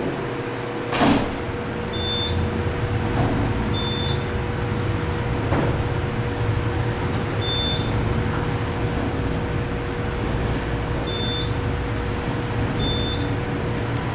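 Elevator doors closing with a thump about a second in, then the cab descending with a steady low travel rumble and a constant hum. Short high beeps sound every couple of seconds during the ride.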